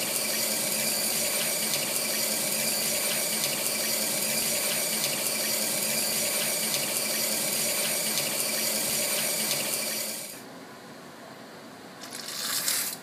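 Emergency eyewash station running, its water jets spraying and splashing steadily over a person's hand. The spray stops about ten seconds in, leaving a quieter background.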